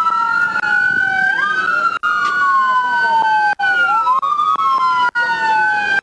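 Two or more police car sirens wailing at once, their slow rising and falling tones overlapping and out of step. The sound cuts out for an instant three times.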